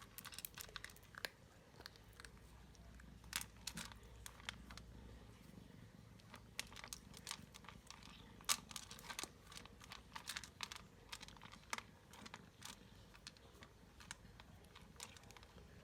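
A cat with a broken jaw eating hungrily: irregular wet clicks and crunches of chewing, a few a second, with one louder crunch about halfway through.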